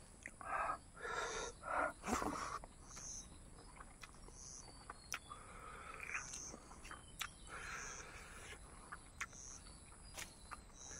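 Close-miked chewing of a mouthful of pork and rice, loudest in a few rough bursts in the first two or three seconds, with sharp mouth clicks throughout. A high short chirp repeats about once a second in the background.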